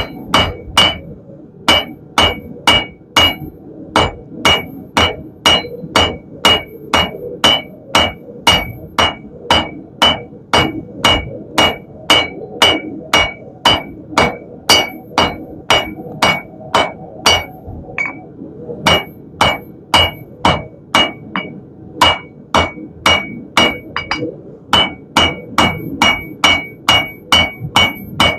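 Hand hammer striking a red-hot steel bar on an anvil, drawing out a taper: a steady run of about two to three ringing blows a second. The hammering breaks off briefly about two-thirds of the way in and again a few seconds later.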